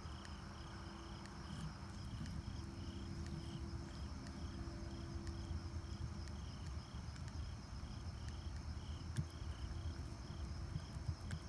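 Insects chirping in a steady rhythm of about two chirps a second, over a constant high-pitched insect drone. Underneath are faint, soft sounds of hands kneading wet clay on a flat stone.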